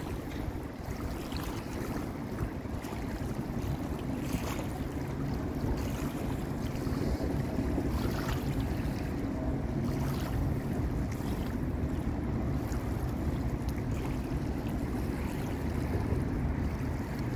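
Steady low rumble with wind on the microphone.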